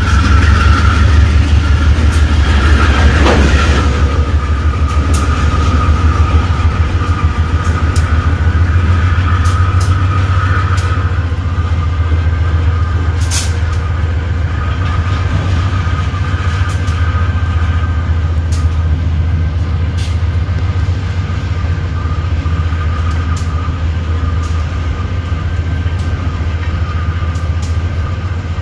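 GE AC44i diesel-electric locomotives running under power close by, a deep steady engine drone with a steady high whine above it. Sharp clicks come here and there as the wheels cross rail joints, and the sound eases slightly as the consist moves on.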